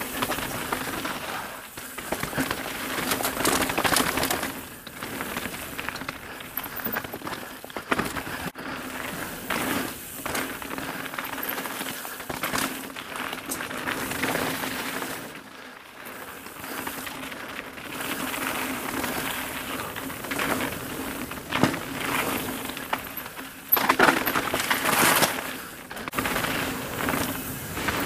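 Evil The Calling mountain bike descending a stony gravel trail at speed. The tyres crunch over loose stones and the bike rattles and clatters over bumps, with a rougher, louder stretch about three-quarters of the way through.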